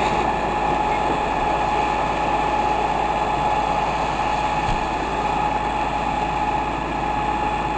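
A fire engine running steadily as it drives its water pump to supply a hose, an even engine noise with a thin, steady whine held throughout.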